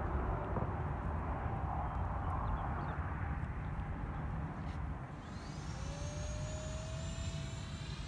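Whine of a small RC plane's 50 mm electric ducted fan flying overhead, over a low rumble. About five seconds in, the fan whine comes through clearly and rises slowly in pitch.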